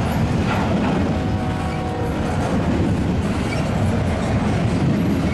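A long freight train passing at speed, with a steady rumble and the clatter of its wheels over the rail joints. About a second in, a faint steady whine rises over it for a second or so.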